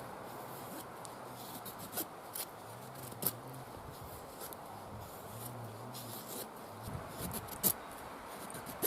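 A blade shaving along a piece of split wood by hand: faint, steady scraping with a few light clicks.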